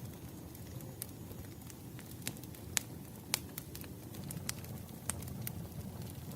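Burning firewood crackling: irregular sharp pops over a low, steady rumble of the fire, with the two loudest pops a little past the middle.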